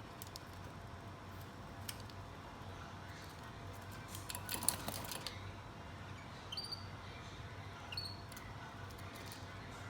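Pet Gouldian finches giving two short, high chirps in the second half. Just before these, near the middle, comes the loudest part: a brief cluster of clicks and rustling. A low steady hum runs underneath.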